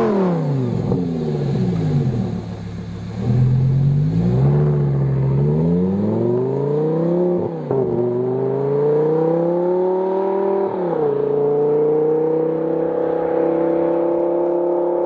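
Lamborghini Gallardo LP560-4's V10 through a Fabspeed Supersport X-pipe exhaust, pulling away on the road. The engine note falls off at first, then climbs, drops sharply twice about halfway and about two-thirds of the way through as it changes gear, then holds a steady pitch.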